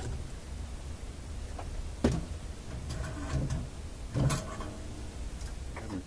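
Workbench handling noises: a few knocks and clatters of tools and parts against a tube radio's metal chassis, the sharpest about two seconds in, over a steady low rumble.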